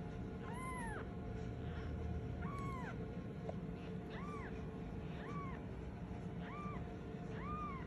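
Very young kitten mewing for its mother: about six short cries, each rising then falling in pitch, a second or so apart.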